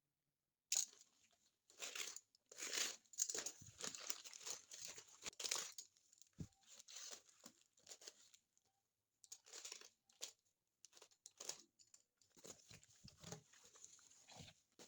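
Packaging being torn open and crinkled by hand, in irregular bursts of tearing and rustling, with a quieter gap of a few seconds in the middle.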